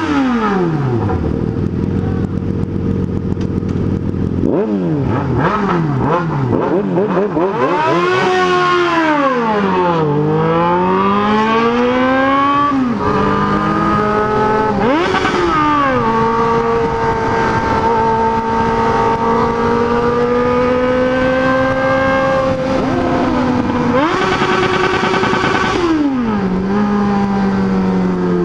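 Motorcycle engines, a Yamaha XJ6 N running with a Suzuki B-King, loud and revving: the pitch drops, climbs and falls back several times, holds fairly steady for a stretch in the middle, then rises once more and drops near the end.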